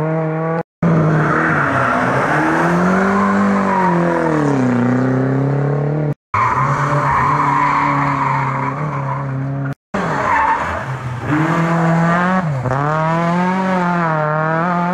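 Rally car engines run hard through a hairpin, one car after another. In each pass the engine pitch falls as the car brakes into the bend and rises again as it accelerates away, over tyre noise on the tarmac. The sound cuts out sharply three times between passes.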